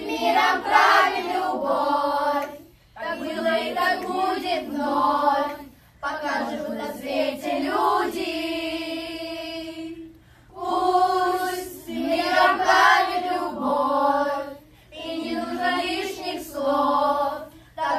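A group of children and a woman singing a Russian song together in phrases with short breaths between them, holding one long note about halfway through.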